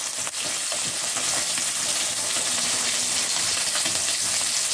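Dried fish frying in hot oil in a pan: a steady sizzle with fine crackling.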